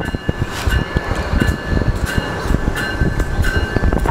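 Decommissioned Budd R32 subway cars rolling slowly over street-running track, with low rumbling and wheels knocking over the rails. A high ringing tone swells about every 0.7 seconds.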